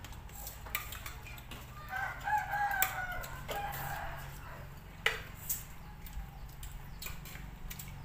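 A rooster crows once, a drawn-out crow of about two seconds that falls in pitch at the end, over light clinks of spoons on plates.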